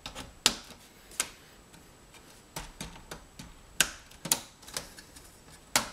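About seven sharp, irregular clicks and knocks of plastic and metal as a busbar in its plastic busbar holders is handled and fitted against the distribution panel's metal DIN-rail frame.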